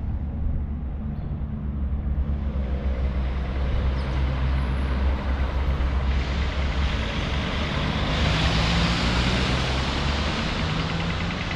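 City street traffic: a steady low engine hum, with a vehicle passing closer as the tyre and engine noise swells from about six seconds in and peaks around eight to nine seconds.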